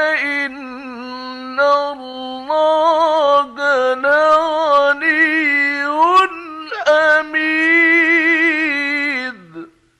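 A male Quran reciter chanting in the ornate mujawwad style: long melismatic phrases with wavering ornaments and short breaths between them. The voice drops in pitch and stops about nine and a half seconds in, closing the verse.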